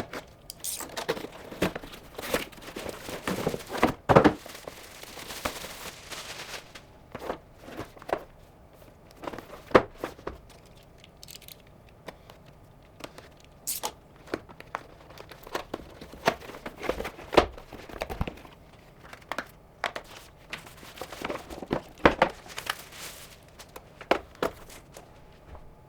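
Packaging being torn and crinkled while an Actto Retro 2 keyboard is unboxed and handled, with scattered irregular clicks and knocks.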